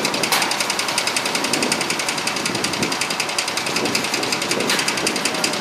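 A rapid, evenly repeating mechanical clatter over a steady rushing noise.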